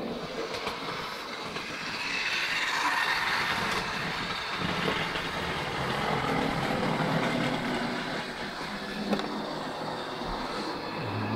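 Model railway train running along the track: a steady whirring of the motor and wheels on the rails, growing louder about two seconds in.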